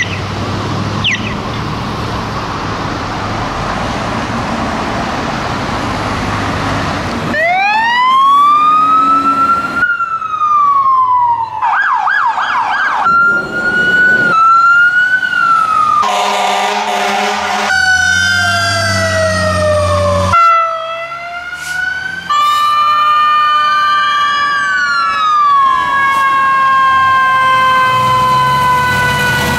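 Road traffic noise with a couple of brief high chirps. From about seven seconds in, a rapid cut-together series of different emergency vehicle sirens: a rising wail, a fast warbling yelp, a steady multi-toned blast, and several overlapping sirens wailing up and down.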